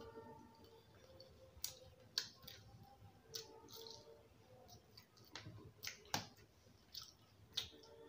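Quiet eating sounds of someone chewing jalebi: irregular wet mouth clicks and lip smacks.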